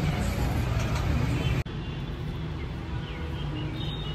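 Busy bazaar street ambience: a steady low traffic hum with background voices. It cuts off abruptly about one and a half seconds in, giving way to a quieter steady outdoor hum with a few faint high chirps.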